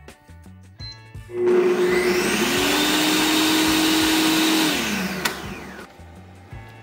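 Cecotec Mambo kitchen robot giving a turbo pulse: its blade spins up about a second in, runs at full speed with a steady whine for about three and a half seconds while grinding dry breadcrumbs with turmeric, then winds down.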